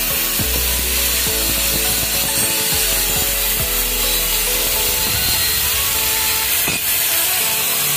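Handheld angle grinder grinding against a steel drum brake shoe, with a steady loud grinding noise over the hum of its motor, as the shoe is readied for bonding a new lining.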